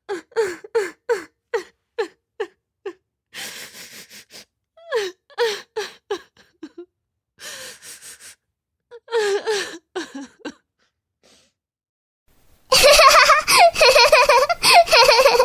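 A person sobbing in short, catching gasps, about three a second, with ragged breaths drawn in between. After a pause of about two seconds, a much louder, unbroken wailing cry starts near the end.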